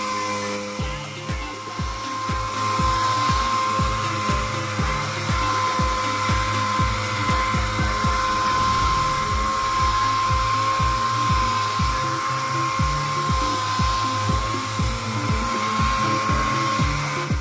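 Compressed air hissing steadily through a paint spray gun, with a thin steady whistle; the hiss cuts off suddenly at the very end. Background music with a steady beat plays underneath.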